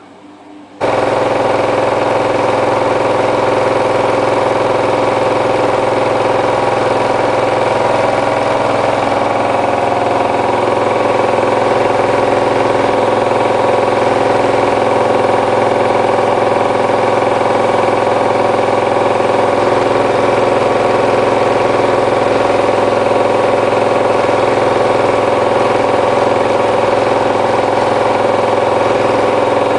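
Hotpoint Ultima WT960 washing machine spinning its drum: a loud, steady motor whine and hum that comes in abruptly about a second in.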